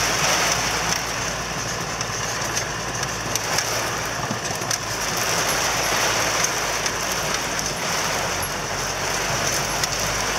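Hail and rain pelting a car's roof and windscreen, heard from inside the cabin as a steady, dense patter, with the engine running underneath.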